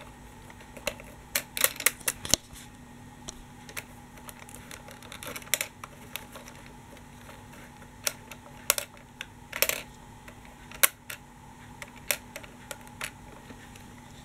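Irregular plastic clicks and taps as a toy tram's pantograph is spun and folded by hand.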